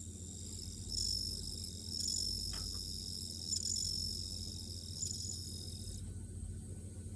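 Japanese bell cricket (suzumushi) males singing their high, ringing trill in repeated phrases that stop about six seconds in; these are among the first songs of the season. A steady low hum runs underneath.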